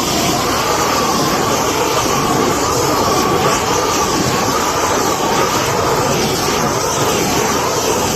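Propane roofing torch burning with a loud, steady roar while the top layer of bitumen membrane is torched onto the flat roof, with a faint wavering tone in the flame noise.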